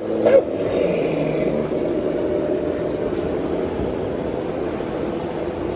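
Radio-controlled model semi truck's sound module playing a steady diesel-engine sound through its small speaker as the truck drives slowly. There is a brief louder blip just after the start.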